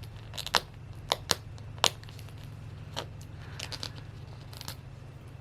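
Plastic wrapping crinkling and tearing as a Mini Brands capsule is pried and peeled open by hand: scattered sharp clicks and crackles over a steady low hum.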